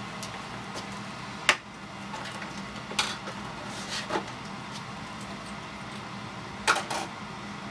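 Small handheld electric fan running with a steady low hum, broken by a few sharp clicks: one about one and a half seconds in, one at three seconds, a softer pair around four seconds and a double click near the end.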